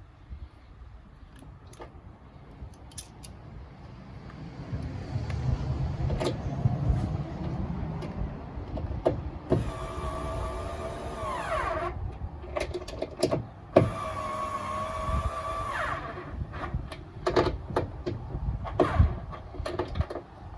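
A cordless drill or driver runs twice, for about two seconds each time, with a steady motor whine as it spins 10mm nuts and bolts. The first run winds down in pitch as it stops. Scattered clicks and knocks of tools and metal parts come before, between and after the two runs.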